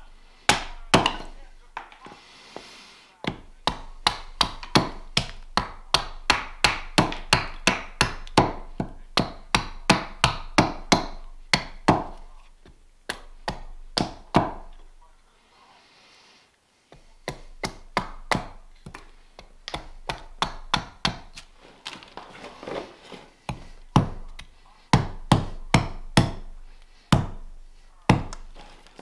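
Carving axe chopping a greenwood spoon blank held on a chopping stump: runs of sharp strikes, two or three a second, broken by a pause of about two seconds midway.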